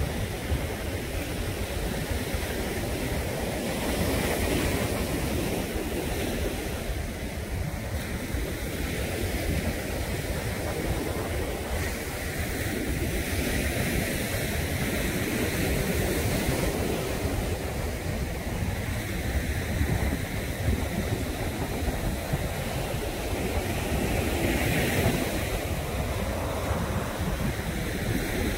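Steady low rumble of a distant SpaceX Falcon 9 rocket climbing after launch, a continuous roar with no distinct tones.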